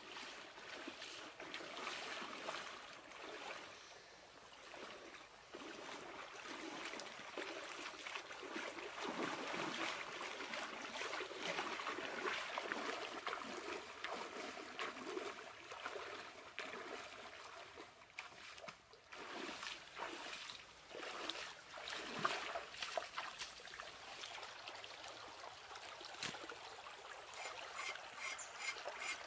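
Shallow stream running over stones, with irregular splashing from feet wading through the water.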